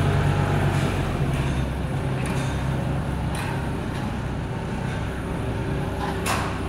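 Massey Ferguson 168 tractor's four-cylinder diesel engine running steadily at low revs, easing off slightly about a second in, with a few short knocks.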